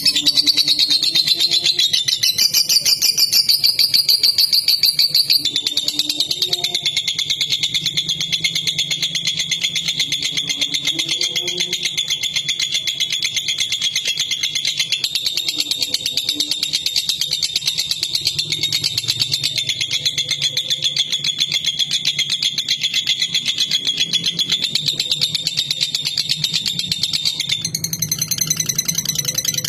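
Lovebird singing one long, unbroken trilling chatter of very fast high-pitched ticks. It climbs higher for a few seconds near the start and jumps higher again near the end.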